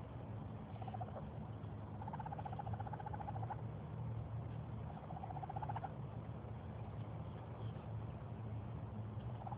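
Baby raccoon calling with pitched, trilling cries: a short one about a second in, then two longer ones, over a steady low hum.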